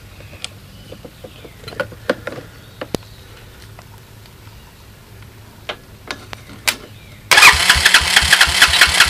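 A few faint clicks and knocks, then about seven seconds in a quad's engine fires abruptly and keeps running with a rapid firing pulse, on a makeshift pit-bike CDI ignition wired to its stator in place of its wrecked wiring harness.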